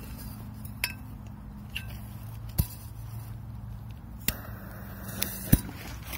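Enamel metal bowl clinking and knocking as it is handled. There are a handful of separate knocks: the first two ring briefly with a metallic tone, and the loudest come about two and a half and five and a half seconds in.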